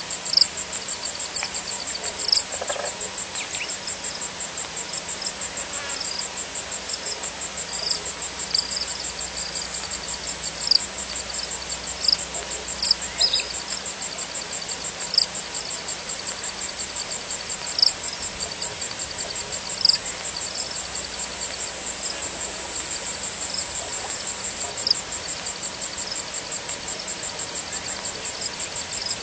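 Night insects, such as crickets, trilling: a continuous fast high pulsing trill, with louder sharp chirps every second or two.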